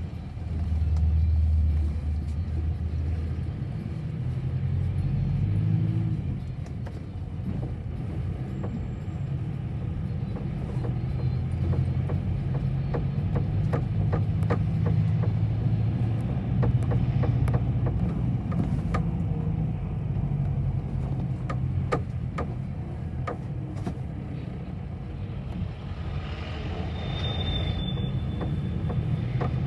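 Bus engine and road noise heard from inside the passenger cabin: a steady low rumble with scattered clicks and rattles. A short high-pitched squeal comes near the end.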